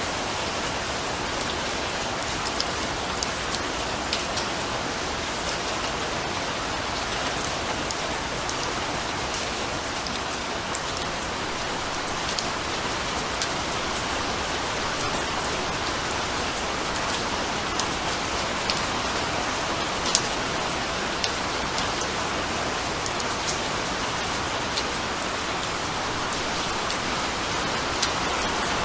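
Steady rain falling, an even hiss with many scattered individual drop ticks on a hard surface.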